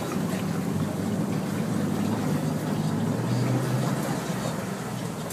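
Land Rover Defender's diesel engine running at low speed off-road, heard from inside the cab as a steady low drone, with the rumble of the vehicle over rough ground.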